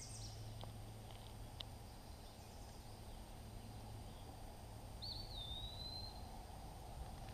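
Quiet woodland ambience: faint steady background noise with a bird calling once about five seconds in, a short whistled note that wavers and then slurs on for about a second.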